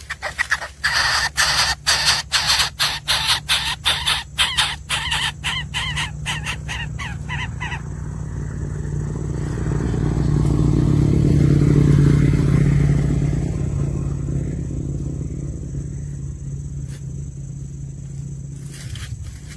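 Baby birds in the nest begging with rapid raspy calls, about five a second and quickening, which stop about eight seconds in. A low rumble then swells and fades away.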